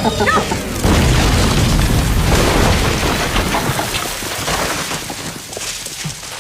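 A large explosion: a sudden deep blast about a second in, followed by a long rumble that slowly dies away over several seconds.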